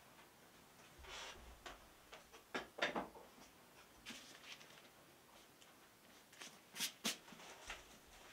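A few faint knocks and clicks of someone moving about and handling things in a small room, with a sharp pair of clicks near the end.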